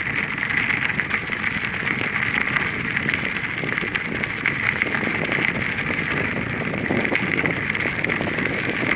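Wind rushing over a phone's microphone during a bicycle ride, with a steady high-pitched buzz underneath.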